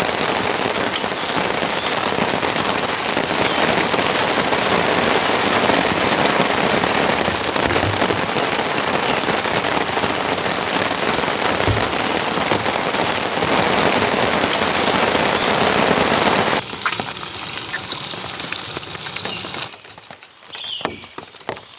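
Heavy rain falling steadily. About seventeen seconds in it drops abruptly to lighter rain, and again near the end to scattered drips.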